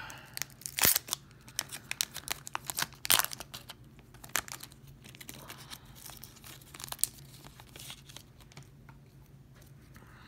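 An Upper Deck Artifacts hockey card pack's foil wrapper crinkling and tearing open, with sharp crackles packed into the first few seconds. After that come quieter, sparser rustles and slides as the cards are leafed through.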